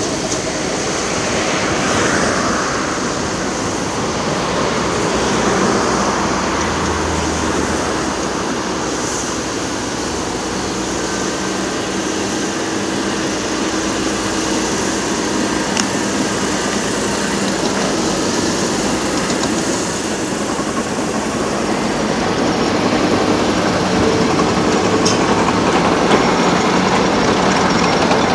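Diesel construction machinery running steadily under a continuous rush of motorway traffic.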